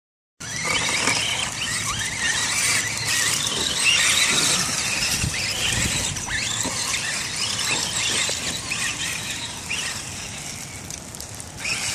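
Electric motors and gear trains of two Axial RC crawler trucks, a Wraith and an SCX10, whining high, rising and falling in pitch with the throttle as they drive through mud.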